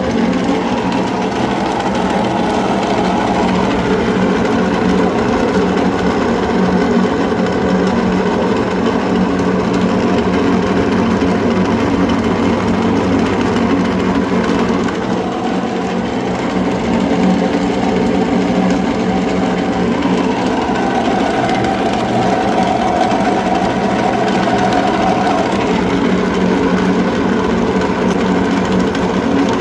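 Electric meat grinder running steadily under load, its motor humming loudly beneath a continuous rough grinding texture.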